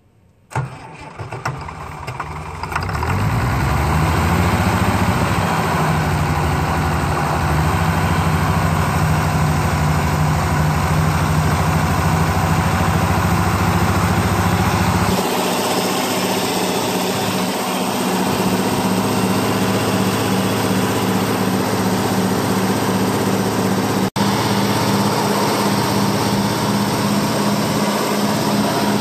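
International Harvester 706 diesel engine cranked by the starter, catching about two seconds in and then running steadily. Its note changes about halfway through and it keeps running.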